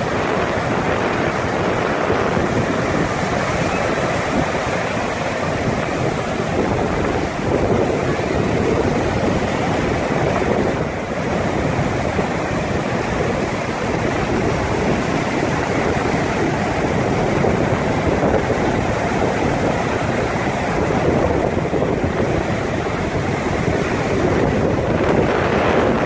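Ocean surf breaking and washing ashore in a steady, continuous rush, with wind buffeting the microphone.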